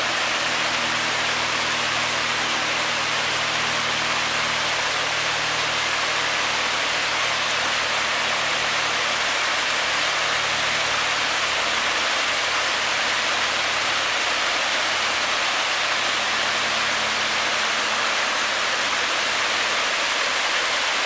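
Water cascading down a wide stepped stone fountain, a steady, even rushing with no change in level.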